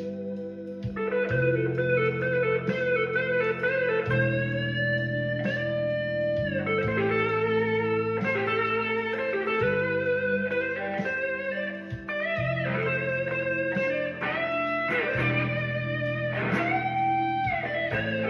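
Electric guitar playing a blues solo, with notes bent upward and held. Underneath runs a low accompaniment that changes chord every few seconds.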